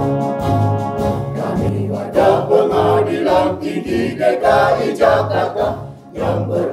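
Mixed choir of men and women singing a march-style anthem together over a band backing with a steady drum beat; a brass phrase leads in and the voices enter about a second and a half in.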